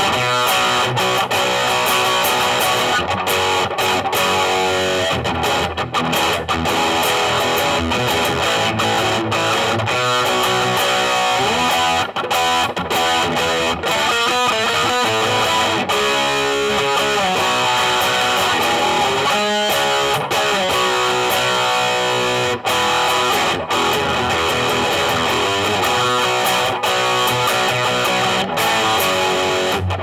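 Gibson Les Paul Standard electric guitar with Burstbucker Pro humbuckers, played continuously through a Blackstar HT Soloist 60 tube amp with a distorted tone.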